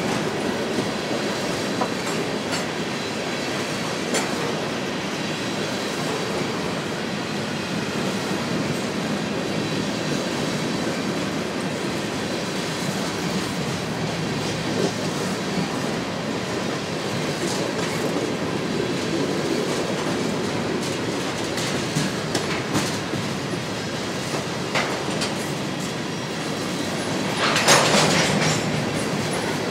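Freight train of three-bay covered hopper cars rolling past: a steady rumble of steel wheels on rail, with occasional clicks as wheels cross rail joints. Near the end there is a louder, harsher burst lasting about a second.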